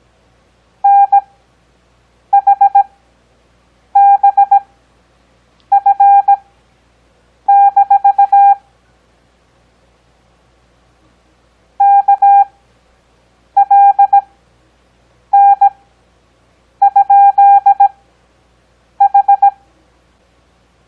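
Morse code practice tone: a single steady beep keyed in dots and dashes, characters sent at 17 WPM with wide Farnsworth spacing for an overall 6 WPM, so each letter comes as a quick group with a long gap after it. There is a longer pause about nine seconds in, between words.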